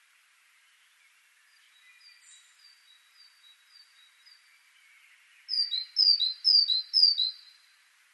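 Great tit singing: four loud two-note phrases, each a high note dropping to a lower one, about two a second, near the end. A fainter run of repeated high notes comes before it.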